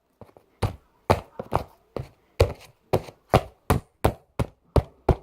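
Slime being pressed and poked by hand, giving a regular run of sharp clicks, about three a second.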